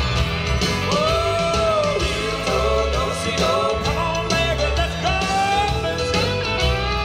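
A country dance song with singing and guitar over a steady beat.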